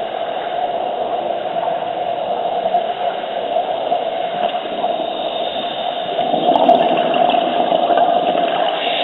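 Underwater sound picked up by a diver's camera: a steady muffled hiss with bubbling, swelling about six seconds in.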